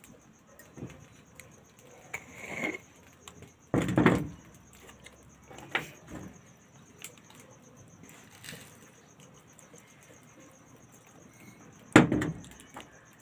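Kitchen items being handled on a tabletop: a glass coffee jar with a plastic lid is set down and picked up, giving a few sharp knocks and clinks with smaller clicks and rustles between. The loudest knock comes near the end.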